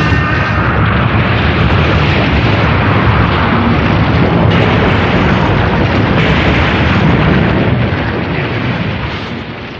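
Sound effect of a huge fiery explosion from an animated film: one long, continuous blast that rumbles steadily and dies away near the end.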